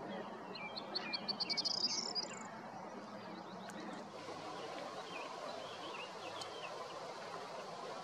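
Corn bunting singing once: a run of short notes that speed up into a high trill, about two seconds long. Fainter short bird chirps follow, over steady background noise.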